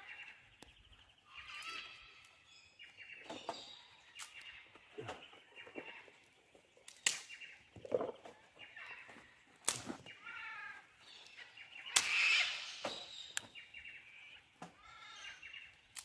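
Birds calling over and over, pitched cries every second or two. Several sharp clicks and clacks are heard as sticks are handled in a steel fire pit.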